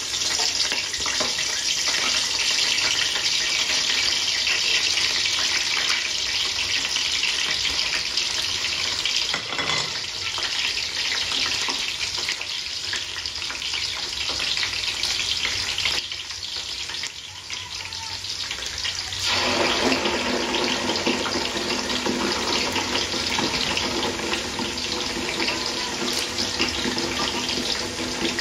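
Sliced red onions sizzling in hot oil in a large aluminium stockpot, a steady frying hiss that grows fuller about two-thirds of the way through.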